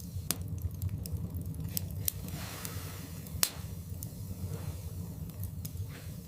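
Wood logs burning in a fireplace: a steady low rumble of flames with scattered sharp crackles and pops. The loudest pop comes about three and a half seconds in.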